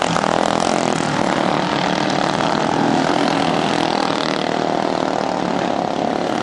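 Racing lawn mower engines running at high revs, a loud steady engine sound with little change in pitch.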